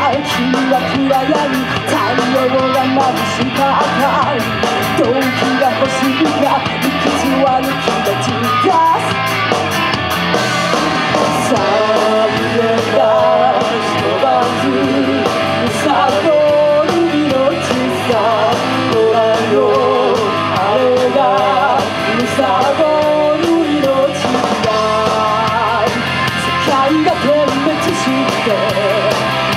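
Rock band playing live, a singer over drums and amplified instruments, in a hard-driving rock style.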